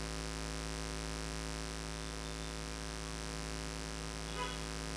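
Steady electrical mains hum from a public-address microphone system.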